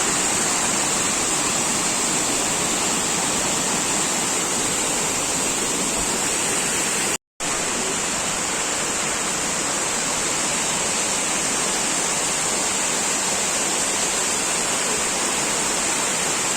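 Steady rush of water from the Dolo waterfall, an even, unbroken noise that drops out for a split second about seven seconds in.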